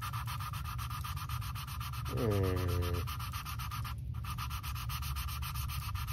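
A valve being hand-lapped against its seat in an Edelbrock aluminum cylinder head: a suction-cup lapping stick twisted back and forth, the valve face grinding on the seat through lapping compound in a quick, even gritty rhythm. A short pitched hum sounds about two seconds in.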